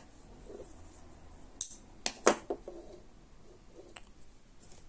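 A few sharp clicks with light handling noise between them, from a folding knife being handled: three close together about one and a half to two and a half seconds in, and a fainter one near the end.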